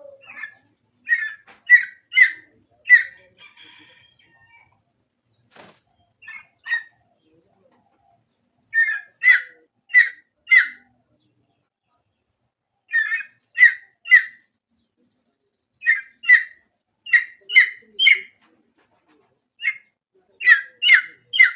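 Junglefowl calls: short, sharp notes in quick groups of three or four, with a few seconds' pause between groups.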